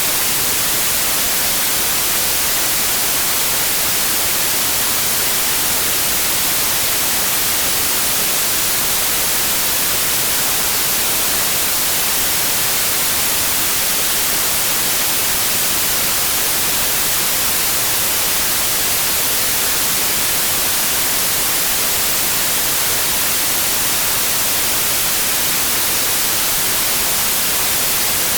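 Steady white noise: an even hiss with no change or rhythm, played for soothing a baby to sleep.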